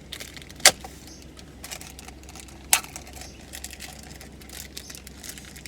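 Two sharp clicks about two seconds apart, with small ticking and rattling in between, as a car air freshener is handled and taken off to be swapped for a new one.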